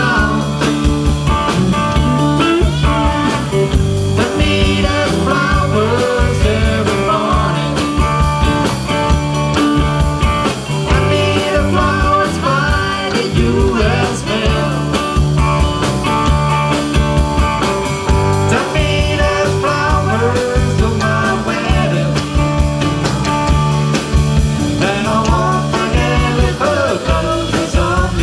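Live blues-rock band playing: electric guitar and drums with a steady beat, and a voice singing over them.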